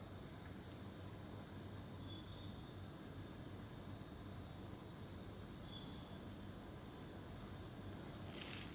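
Steady high-pitched hiss with a faint low hum beneath it, and a few short soft clicks near the end.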